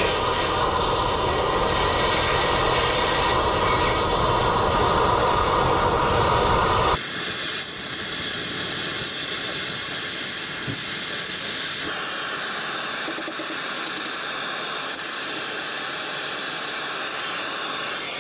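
Steady, loud hissing noise of metalworking tools cutting and grinding the worn spindle off a truck axle housing. The sound changes abruptly about seven seconds in to a quieter, thinner hiss, and shifts again a few seconds later.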